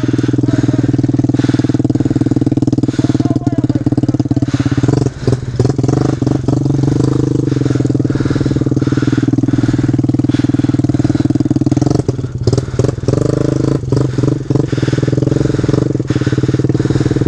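Kawasaki KLX110 pit bike's small single-cylinder four-stroke engine running steadily at low revs, with a few brief knocks and rattles about five seconds in and again around twelve seconds.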